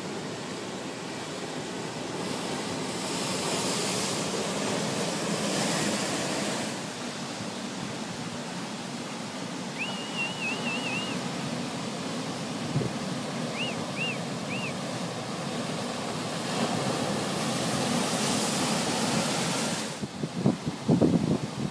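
Ocean surf washing and breaking onto a rocky shore, a steady rush that swells twice as waves come in. A bird gives two short series of high chirps about halfway through, and wind buffets the microphone near the end.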